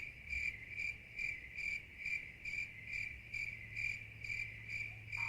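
Crickets chirping in an even rhythm, about two chirps a second, over a faint steady low hum. This is the stock 'crickets' silence effect.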